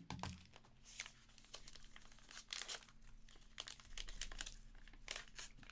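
Foil card-pack wrapper crinkling and tearing by hand in a series of short, crisp crackles: the pack being ripped open, one that tears badly.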